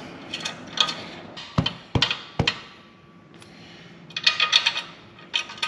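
Three sharp knocks in a little under a second, then a quick run of light metallic clicks near the end, from small bolts and tools being handled while a motorcycle muffler is refitted, with background music playing underneath.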